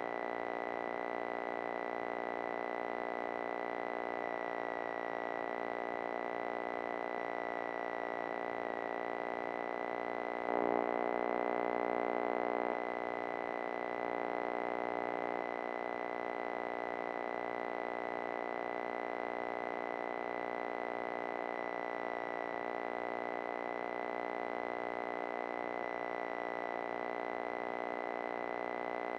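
Alternator whine carried electrically into the aircraft intercom audio line with the engine running: a steady buzzy tone with many overtones and a thin high whistle over it, louder for about two seconds near the middle. It is electrical noise from the alternator, which gets stronger as engine RPM rises.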